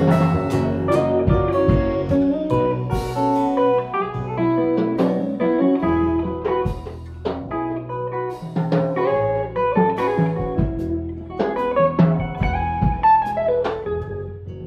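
Live acoustic band playing an instrumental break: a run of plucked guitar notes over acoustic guitar chords and an upright bass line.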